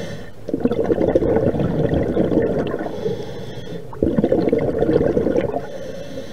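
Scuba diver breathing through a regulator underwater: two loud bursts of exhaled bubbles gurgling past, each followed by a shorter, quieter hiss of inhaling.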